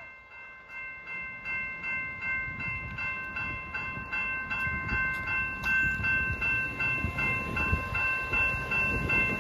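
Railroad grade-crossing bell ringing steadily, about two to three strokes a second, as an approaching train's rumble grows louder from a couple of seconds in.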